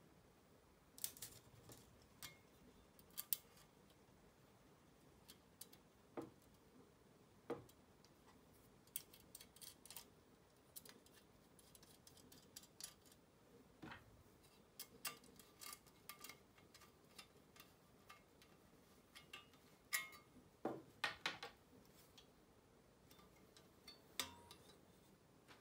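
Faint, irregular light clicks and taps of thin aluminium sheet parts and small bolts and nuts being handled and fitted together by hand, as a sheet-metal airplane weather vane is assembled.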